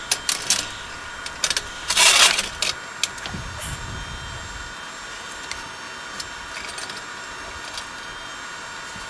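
Metal clinks and a short loud scrape as horseshoes and tools are handled on a steel welding table, then a low rumble of handling. After that only a steady faint hum with a few small ticks.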